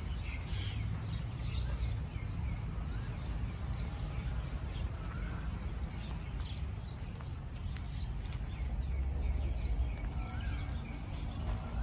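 Birds chirping in short, scattered calls with a few brief whistled glides, over a low steady rumble.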